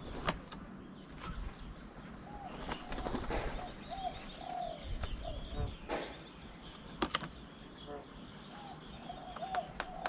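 Birds at a feeding table: short, hooked call notes repeated from about two and a half seconds in, with a few sharp taps and wing flutters.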